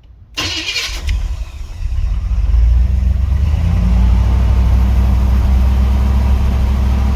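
1984 Chevrolet Monte Carlo engine cold-started with the gas pedal held down: a brief crank on the starter, the engine catching and rising over about two seconds, then running steadily.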